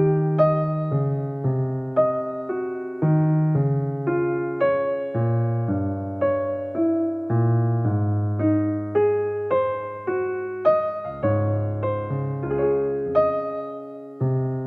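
Background piano music: a melody of struck notes, each fading away, over lower bass notes.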